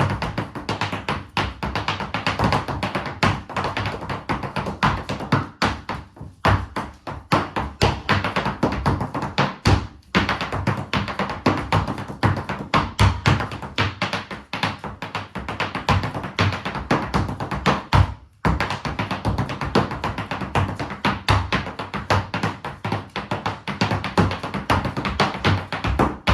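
Rapid, rhythmic tapping of dance shoes striking a hard floor in percussive footwork, over music, with brief breaks about ten and eighteen seconds in.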